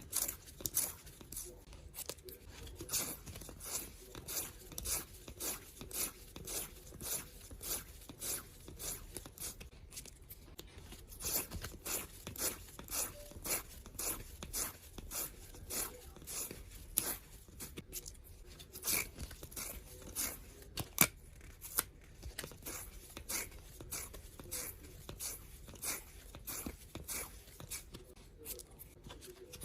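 Washi tape being pulled off the roll and wound, in quick short peeling strips about two a second, with one louder snap about 21 seconds in.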